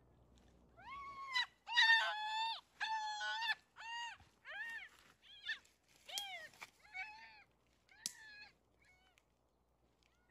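Young goat bleating in distress, a rapid series of about a dozen high, wavering cries as it is seized. The loudest cries come near the start, and they grow shorter and fainter until they stop shortly before the end.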